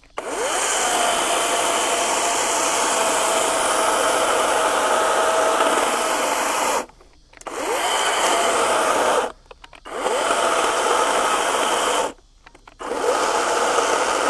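EGO 56V brushless 16-inch battery chainsaw running under load, cutting through a 12-inch oak log. It stops three times and starts again, its whine rising as the motor spins back up, while the battery is down to its last cell.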